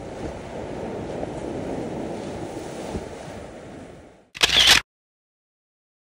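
Ocean surf washing onto a sandy beach, a steady rushing noise that fades out about four seconds in. Just after it comes a short, loud burst of hissy noise, about half a second long.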